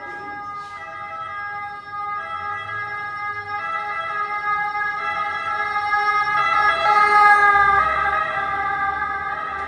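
Emergency vehicle's two-tone siren, alternating between a high and a low note about every second and a half. It grows louder to a peak about seven seconds in as it passes close, then eases off.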